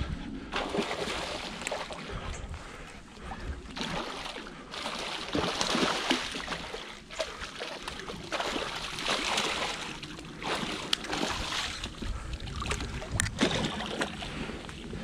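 A hooked pike thrashing and splashing at the water's surface in irregular bursts as it is played to the bank.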